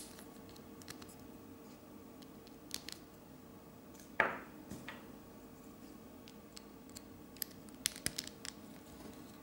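Lego Technic plastic parts clicking and scraping together as they are fitted by hand: scattered small clicks, the loudest a short scrape about four seconds in.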